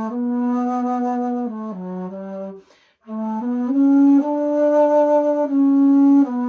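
Bass flute playing a slow melody of held low notes, with a breath pause about three seconds in.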